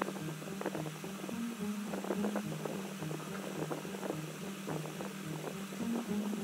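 Fingertips spreading thick, sticky charcoal peel-off mask paste on the skin, giving faint irregular tacky clicks and smears, over a steady low hum.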